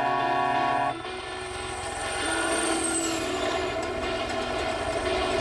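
Truck's chrome trumpet air horn sounding a steady chord of several notes, cutting off about a second in. Then steady vehicle running noise.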